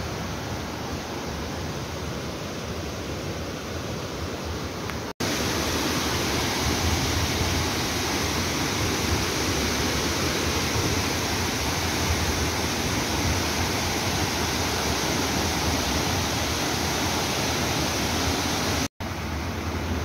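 Steady rush of a waterfall and the rocky stream below it. It is quieter at first, jumps louder at an abrupt cut about five seconds in, and breaks off briefly near the end.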